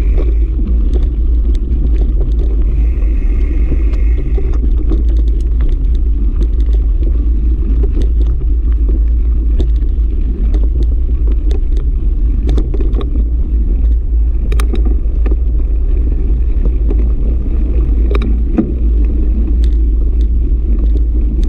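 Wind buffeting the microphone of a camera on a moving mountain bike, a steady low rumble, with scattered ticks and clicks from the tyres and bike rattling over sandy, gravelly dirt.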